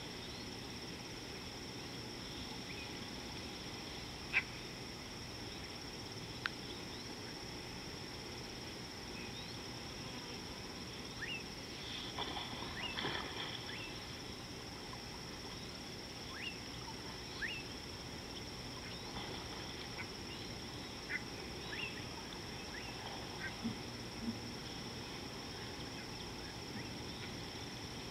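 Steady high-pitched insect drone with scattered short bird chirps over it, and a louder, rougher burst of animal calls about twelve seconds in that lasts a second or two.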